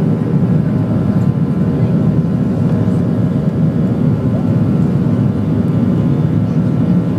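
Boeing 737-700's CFM56-7B turbofan engines running at high power in the climb just after liftoff, heard inside the cabin from a window seat over the wing: a loud, steady low rumble with a few faint steady tones above it.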